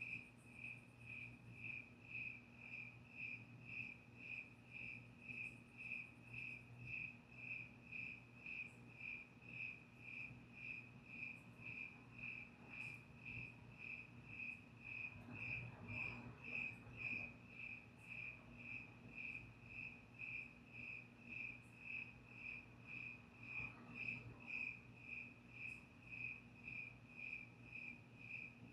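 A cricket chirping in a steady, even rhythm, about two short high chirps a second, over a faint low steady hum.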